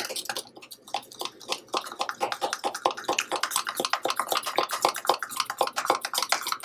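A metal utensil beating a thick powdered-sugar glaze in a glass measuring cup: rapid, rhythmic clinks and scrapes against the glass, several a second, as the lumps are worked out.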